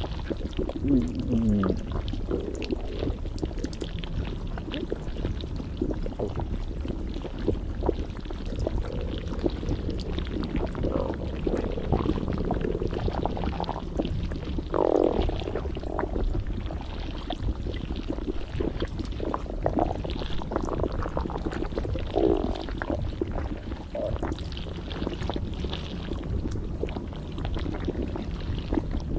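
Stomach gurgling and rumbling: a steady low rumble with irregular wet gurgles, some sliding in pitch, the strongest about halfway through.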